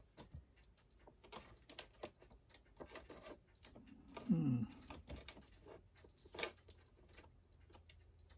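Soft, scattered clicks and taps of small metal parts and tools being handled while a vintage Lionel toy locomotive's motor and chassis are taken apart. A short falling hum, like a murmured 'hmm', comes about four seconds in, and a sharper click a little past six seconds.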